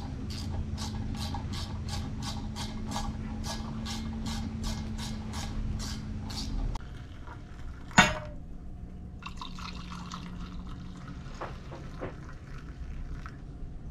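Even ticking, about three a second, over a steady low hum; then a single sharp click about eight seconds in, and hot water pouring from a stainless stovetop kettle into mugs.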